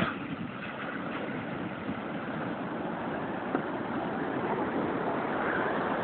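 Steady rushing noise of surf and wind at the shore.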